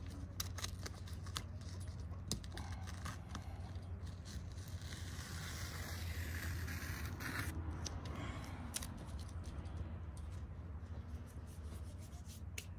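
Hands rubbing and pressing glued canvas fabric flat: scraping and rustling with scattered small clicks and taps, and a longer scrape about five to seven seconds in.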